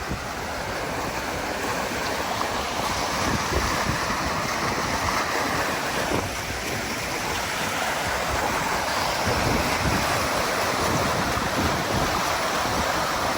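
Flood-swollen mountain creek rushing over rocks in rapids and cascades, a steady loud whitewater rush, with wind buffeting the microphone.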